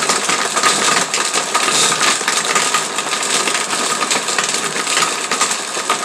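Countertop blender motor running steadily with a whine, blending a smoothie of frozen berries and ice, with a constant clatter of ice pieces knocking against the jar: the ice is not yet fully crushed.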